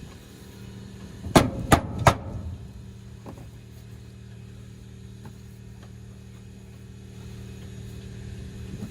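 Three sharp knocks in quick succession, about a third of a second apart, like hammer blows on metal, over a steady low mechanical hum.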